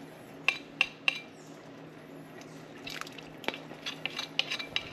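A cooking spoon clinking and scraping against a plate and a pan of simmering beans: three sharp clicks about half a second in, then a run of quick taps and scrapes in the last two seconds.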